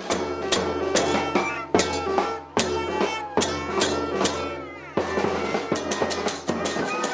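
Background music with a steady drum beat and pitched instruments over it, the pattern changing about five seconds in.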